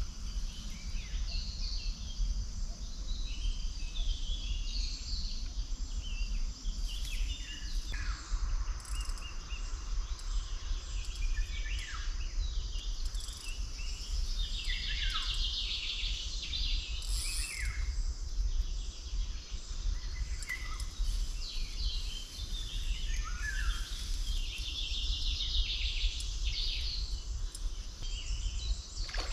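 Wild birds singing, with many short overlapping chirps and trills from several birds, over a steady low rumble.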